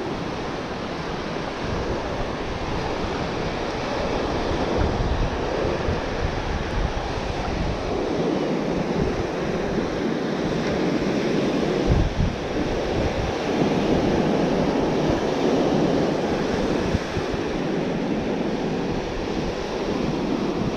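Ocean surf washing onto a beach, a steady rush that swells and eases over several seconds, with wind gusting on the microphone.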